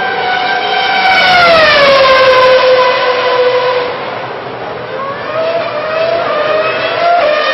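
High-revving 2006 Formula One V8 racing engine, loud and high-pitched; its note drops steeply about a second in as a car passes at speed. A rising engine note follows about five seconds in.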